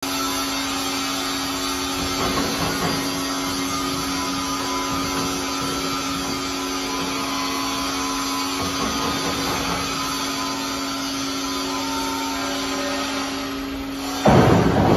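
Steel plate rolling machine running with a steady hum and one constant tone while it pre-bends the edge of a 20 mm plate. About fourteen seconds in, a sudden, much louder metallic noise sets in.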